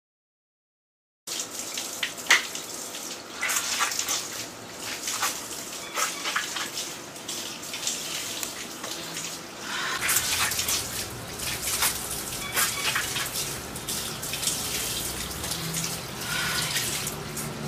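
After about a second of dead silence, water running and splashing steadily, like a tap left on, with small irregular splashes throughout.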